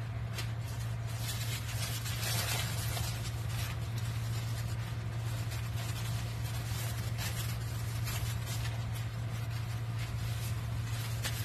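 Pot of sweet and sour pork sauce simmering on a cooktop: a fine, even crackling sizzle over a steady low hum.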